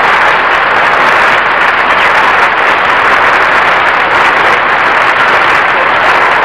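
Studio audience applauding, loud and steady.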